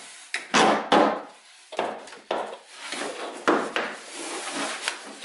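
Handling noise of a model airplane's wood-sheeted wing against its fuselage: several sharp knocks with a stretch of rubbing between them.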